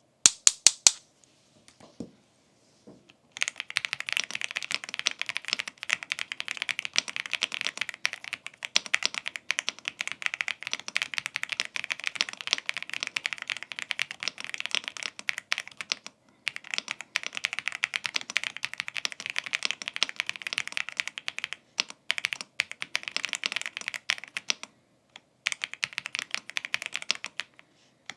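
Fast typing on an AULA F99 mechanical keyboard with Leobog Reaper linear switches and PBT keycaps in a gasket-mounted case: a dense, continuous run of key strokes with a few short pauses. A few sharp, loud clicks come in the first second, before the typing starts about three seconds in.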